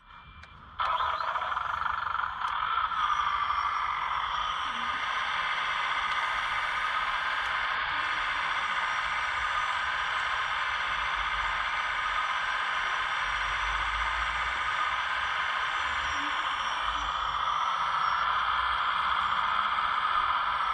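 Radio-controlled scale construction machines running: a steady whine of small motors and hydraulic pumps with a low rumble under it. It starts just under a second in.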